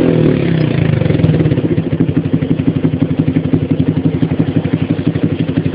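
Yamaha T135 motorcycle's single-cylinder four-stroke engine running through a 4N Big Bullet Diamond aftermarket exhaust packed with stock fiberglass wool. The revs drop away over about the first second, then it settles into an idle with a steady, even pulse.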